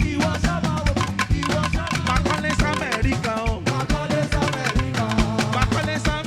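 Live band playing upbeat praise music: a steady, even drum beat and a bass line under a bending lead melody.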